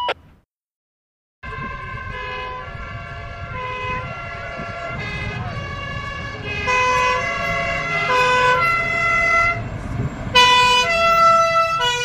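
Two fire trucks' two-tone sirens (Tatütata) sounding out of step as the trucks approach, growing louder toward the end, over the low rumble of their engines. A second of silence comes just before the sirens start.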